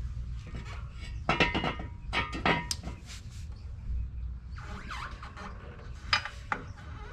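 Steel bolts and suspension hardware clinking as they are handled, a few sharp metallic clinks, each with a short ring.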